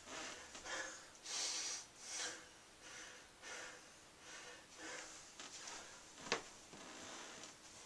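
A man breathing hard, winded from a set of pull-ups: faint quick puffs of breath, about three every two seconds. A single sharp click about six seconds in.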